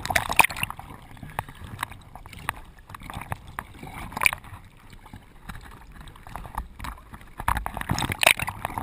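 Sea water sloshing and splashing in the surf, in irregular surges, with louder splashes near the start, about four seconds in, and again near the end.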